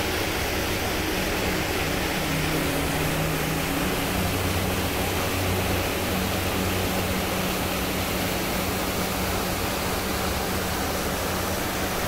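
Waterfall pouring over a wide rock ledge: a steady rush of falling water.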